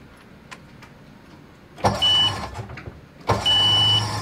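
New Tohatsu 20 hp outboard being started for the first time with the electric starter. It cranks twice, each time with a short high beep; on the second try it catches and runs.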